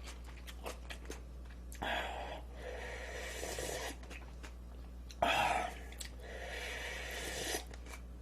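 Person slurping spicy seafood instant noodles (Jin Jjamppong) close to the microphone, with chewing between them. There are several hissing slurps of about a second each, starting about two, five and six seconds in, with small mouth clicks in between.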